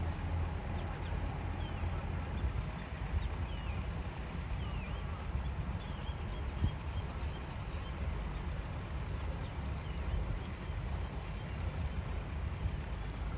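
Low, steady rumble of a small fishing boat's engine running at low speed, with many short chirping bird calls over it, mostly in the first half.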